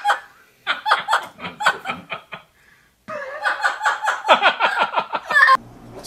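Two bouts of rapid, high-pitched laughter, one about a second in and a longer one from about three seconds in, which cuts off suddenly near the end.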